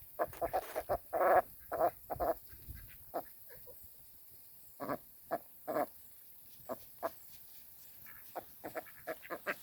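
Ducks giving short, soft quacks in quick bursts, thickest in the first couple of seconds, then scattered, with another run near the end.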